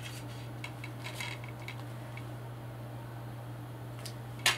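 Plastic DVD case being opened and handled: a few light plastic clicks, then one sharper click near the end, over a steady low hum.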